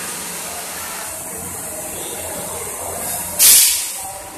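Micro USB soldering machine (TM-1188) running with a steady hiss and hum. A little past three seconds in, a short loud burst of compressed-air hiss comes from its pneumatics exhausting.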